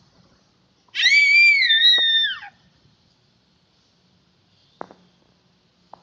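A young child's high-pitched squeal, about a second and a half long, falling in pitch as it ends. A couple of faint taps follow near the end.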